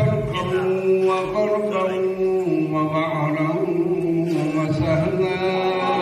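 Unaccompanied men's devotional chanting of an Arabic moulood, with long held notes that step up and down in pitch.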